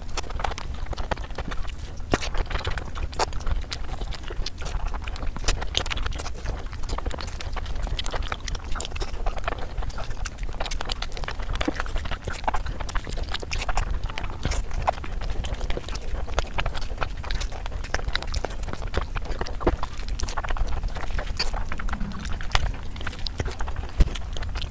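Close-miked wet chewing and lip-smacking on a mouthful of chicken biryani eaten by hand: a dense, unbroken run of quick smacks and clicks over a low rumble.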